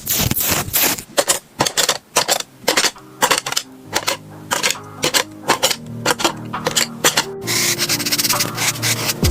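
Quick, irregular scratchy strokes of a drawing tool on paper. Music with steady notes fades in under them about halfway through, and a fast, even beat of background music takes over near the end.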